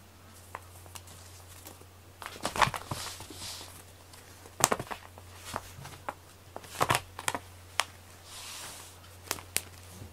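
A cat pouncing on and batting a rope toy on a foam play mat: scattered knocks and scuffles, loudest about two and a half, four and a half and seven seconds in, with brief rustling between, over a faint steady low hum.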